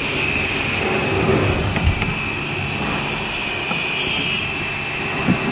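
Steady mechanical running noise with an even high whine over a low rumble, with a couple of light knocks, one about two seconds in and one near the end.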